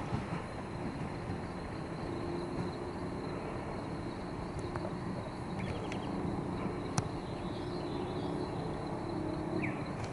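Outdoor ambience: a steady high insect drone over a low background hiss, with a few short bird chirps and a single sharp click about seven seconds in.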